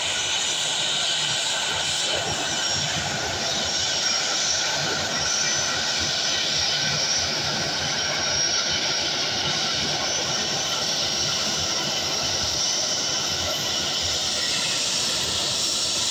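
Boeing 737 airliner's jet engines running at taxi power as it rolls past: a steady high whine over a rushing hiss.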